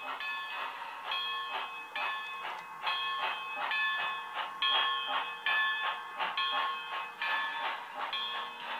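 Sound decoder of a Bachmann On30 4-6-0 model steam locomotive (a Tsunami-style steam sound taken from a Bachmann HO 4-6-0) playing through a small Hi-Bass speaker: steady steam exhaust chuffs, about four to five a second, with a bell-like ring that repeats about once a second.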